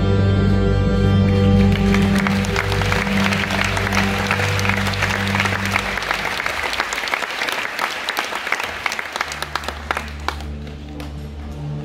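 Theatre audience applauding as the final held chord of a live show number fades out. About nine seconds in, as the clapping dies down, low sustained music for the next section begins.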